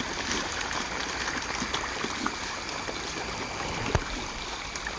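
Shoal of small tilapia splashing and churning at the pond surface as they feed, a steady fizzing patter of water, with one sharper knock about four seconds in.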